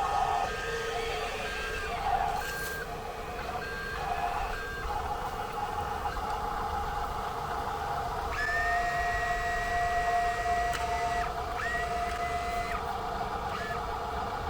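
Radio-controlled toy construction truck beeping a reversing warning, short even beeps about once a second for several seconds. Later a small electric motor whines steadily for about three seconds, pauses briefly, then whines again for about a second.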